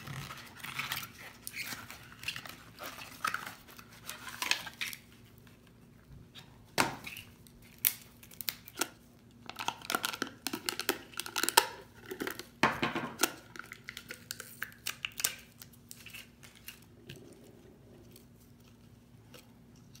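Rustling and crinkling of cardboard packaging and a foil seal being torn open, with scattered sharp clicks and taps of a plastic test strip canister being handled.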